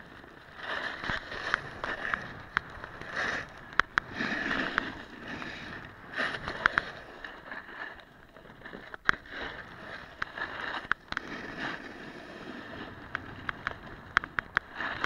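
Snowboard sliding and carving down a snow course: a rough scraping hiss that rises and falls with the turns, with sharp clicks and knocks scattered through.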